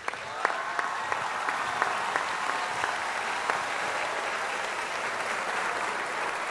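Audience applauding: a dense, steady patter of many hands clapping that starts at once and holds.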